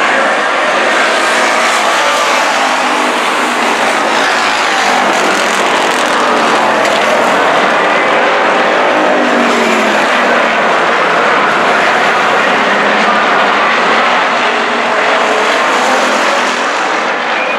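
A field of dirt-track stock cars racing, several engines running at once with their pitch rising and falling as the cars pass.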